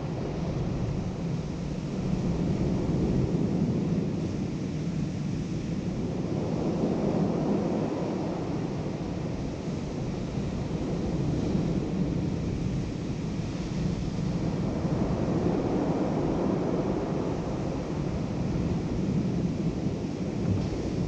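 Ocean surf breaking on a beach of rounded cobbles, a steady wash that swells and eases every few seconds, with wind buffeting the microphone.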